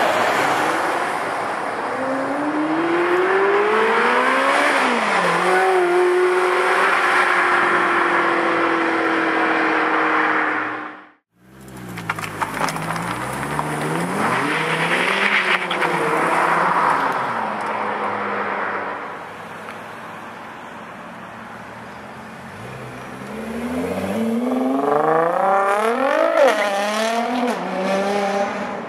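High-performance car engines accelerating hard, pitch climbing and dropping through gear changes, in separate clips broken by a sudden cut about eleven seconds in; the sound eases off in the second part, then another engine revs up near the end.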